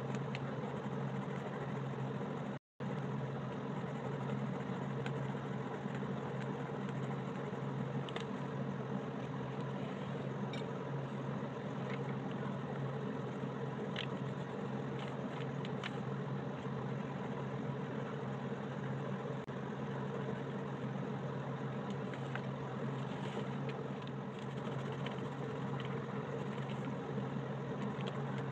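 A steady low hum, like a motor running, under faint scratching of colored pencil on paper, with a few light ticks. The sound cuts out for a moment about three seconds in.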